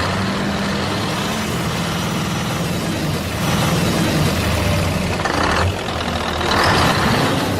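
A truck engine running steadily, with short bursts of hissing about halfway through and again near the end.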